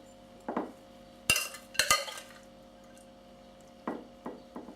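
A serving utensil clinking and scraping against a bowl and tray as salad is spooned out: a couple of sharp clinks a little over a second in, and softer scrapes later.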